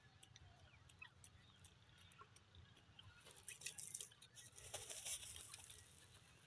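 Grey francolin dust-bathing in dry loose soil: faint scratching and crackling of dirt, with two bursts of scuffling, about three and a half and five seconds in.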